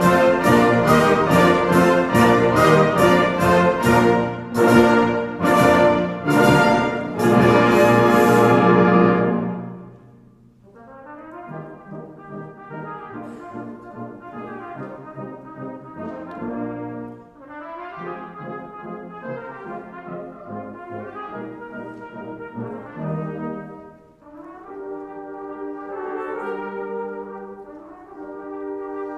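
Orchestral music led by brass: loud with regular strikes for about the first nine seconds, then much softer, in swelling phrases.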